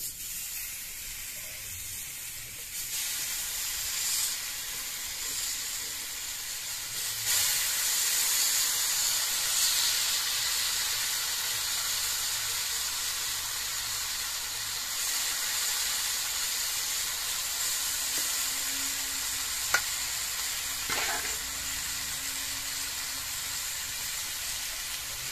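Masala-coated pieces of suckermouth armoured catfish sizzling in hot coconut oil in a frying pan over a wood fire. The sizzle gets louder as more pieces are laid in, about three and seven seconds in, with one sharp click later on.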